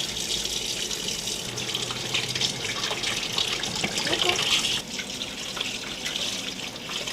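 Tap water running steadily into a sink as a kitten is being bathed.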